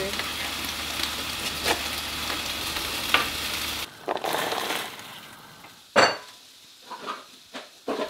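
Chef's knife slicing green beans on a plastic cutting board, with scattered knife taps and a sharp knock about six seconds in, over a steady hiss that stops abruptly partway through.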